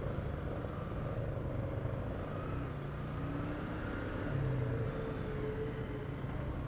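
Honda CG 150's single-cylinder four-stroke engine running at low speed in slow city traffic, a steady low hum that swells briefly a little past the middle, with the sound of nearby trucks and motorcycles around it.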